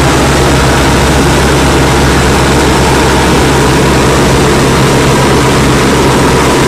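Propeller aircraft engine running steadily, a deep, even drone under a loud rushing noise.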